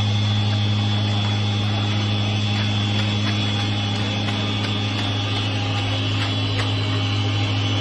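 Gas-powered vibrating concrete screed (ScreeDemon) running steadily as it is drawn over wet concrete, a constant low engine-and-vibrator hum.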